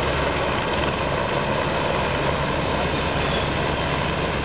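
Boeing 787 Dreamliner's twin jet engines running at low taxi power: a steady, even rush with a faint low hum underneath.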